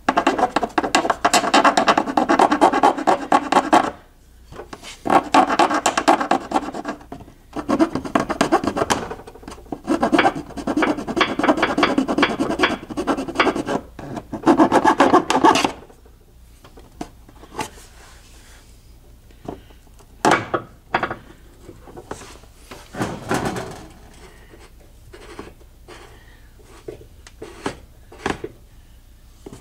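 Hand file rasping back and forth on the freshly cut edge of a plastic car grille opening, in four runs of quick strokes that stop about sixteen seconds in. After that, only scattered light taps and clicks.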